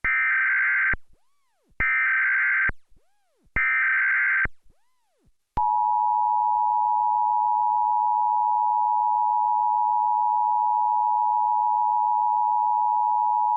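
Emergency Alert System test over a TV broadcast: three screechy one-second bursts of SAME digital header data, then about five and a half seconds in, the steady two-tone EAS attention signal starts and holds.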